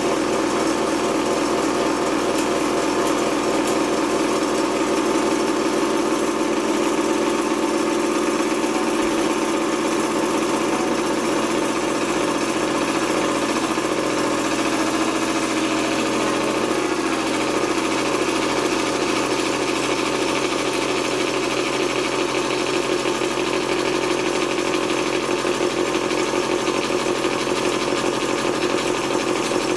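Home electric candyfloss machine running, its motor spinning the heated sugar head with a steady hum while it throws out floss.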